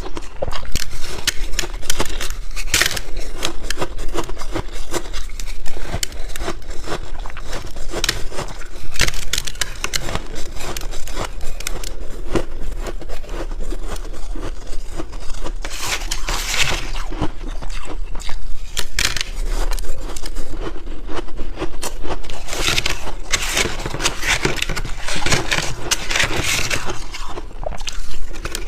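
Close-miked biting and chewing of crunchy white freezer-frost ice, a dense run of crunches and crackles with louder clusters of bites every few seconds.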